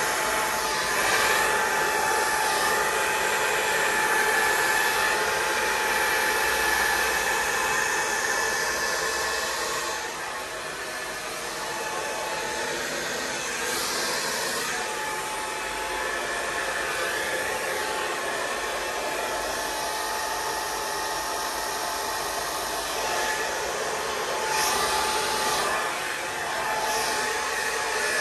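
Electric heat gun running steadily, blowing hot air over wet acrylic pour paint: a rush of air with a faint motor whine, a little quieter from about ten seconds in.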